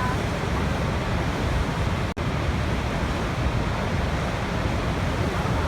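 Waterfall: steady rushing of falling water, heaviest in the low range. It cuts out for an instant about two seconds in.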